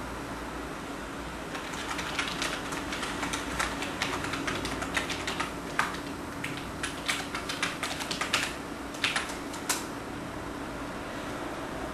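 Typing on a computer keyboard: a quick, irregular run of key clicks starting about two seconds in and stopping about two seconds before the end, over a steady low hum.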